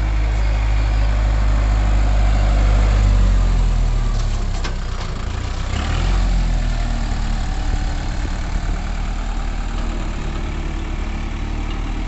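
Kubota MU4501 tractor's four-cylinder diesel engine running, settling about four seconds in to a steady idle. A couple of short knocks come about five and six seconds in.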